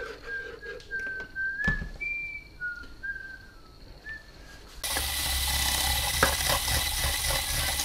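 Someone whistling a few short notes, then about five seconds in an electric stick blender with a whisk attachment switches on and runs with a steady whirr, whisking egg yolks and oil into mayonnaise.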